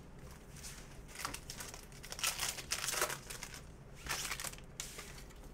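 Wrapper of a Panini Prizm basketball retail card pack crinkling and tearing as it is ripped open by hand, in several short, irregular rustling bursts.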